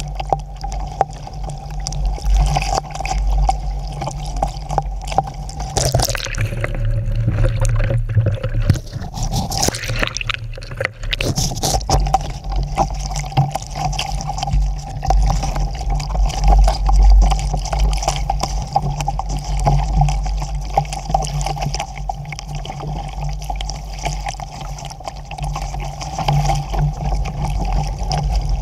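Lake water splashing and sloshing over a swamped Sabot sailing dinghy, with wind rumbling on the microphone. The sound briefly changes character from about six to eleven seconds in.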